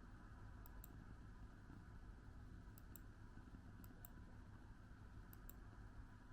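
Near silence: a steady low room hum with four faint pairs of short, sharp clicks, one to two seconds apart.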